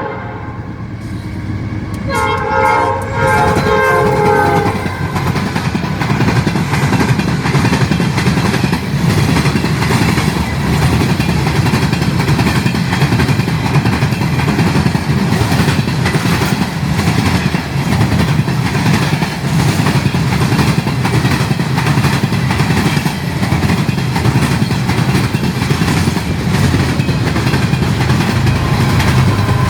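A Norfolk Southern freight train's air horn sounds one multi-note blast about two seconds in, lasting a couple of seconds. Then the train passes at speed, a steady loud rumble with wheels clicking over the rail joints.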